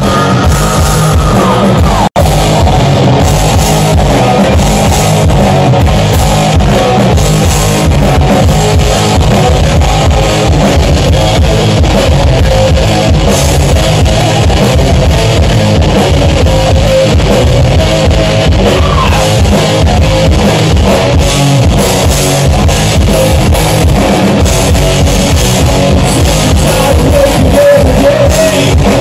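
Live rock band playing a rock and roll song: electric guitars over a drum kit, loud and steady, with a brief dropout in the audio about two seconds in.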